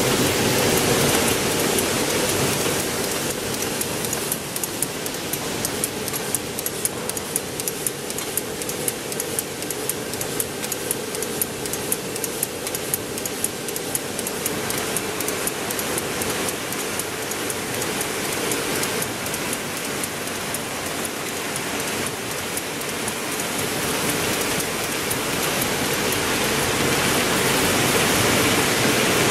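Heidelberg Speedmaster SM 102 two-colour sheetfed offset press running: a loud, steady mechanical hum and rush, with a fast, even clicking that stands out through the middle part.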